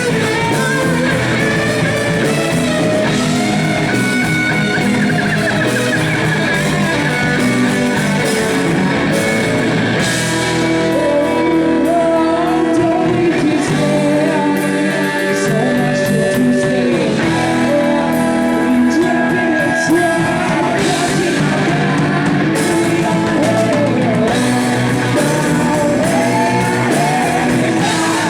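Live blues-rock band playing: guitar-driven rock with singing.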